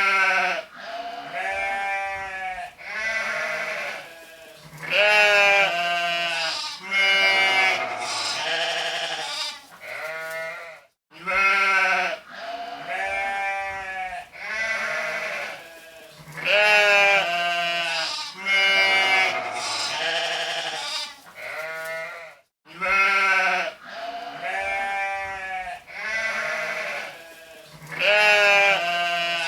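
A flock of sheep bleating, many overlapping, wavering calls one after another. The same stretch of bleats repeats about every eleven and a half seconds, with a brief break before each repeat.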